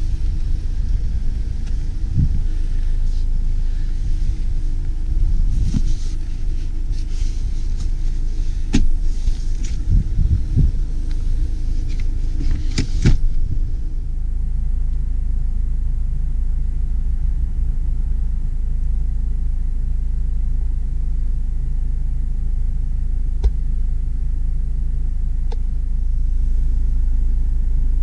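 Clacks and knocks of a Ford S-MAX's folding rear seats being handled, then from about halfway a steady low rumble of the car running, heard inside the cabin.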